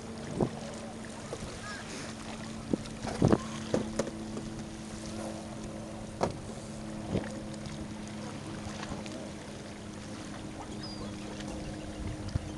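Small waves lapping and splashing against a rocky shore, with wind on the microphone. A steady low hum runs underneath, and there are several short sharp knocks, the loudest about three seconds in.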